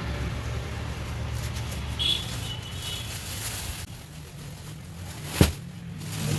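Steady background hum of road traffic, with a short high-pitched beep about two seconds in and a single sharp knock near the end.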